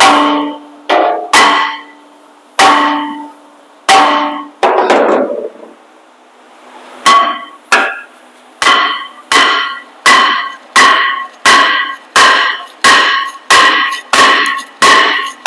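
Steel hammer striking a rust-seized rear brake rotor on a heavy-duty pickup, each blow ringing metallically. A few blows come about a second apart, then a short pause, then a steady run of quicker strikes about one and a half per second.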